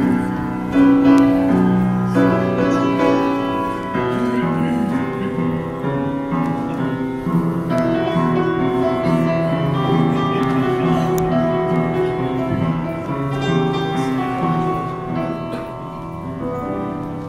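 Slow instrumental music: a melody of held notes over chords.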